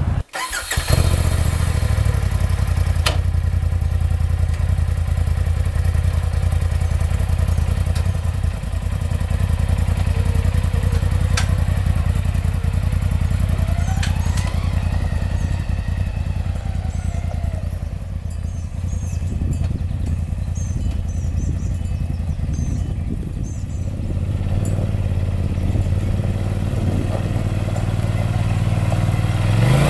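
Polaris RZR Turbo side-by-side's turbocharged twin-cylinder engine idling steadily, then revving up near the end.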